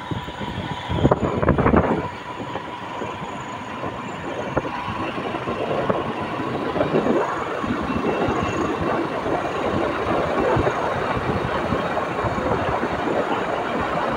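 A motorcycle in motion on a rough road: engine, wind and road noise. There are jolting, rattling knocks in the first two seconds, then a steadier run.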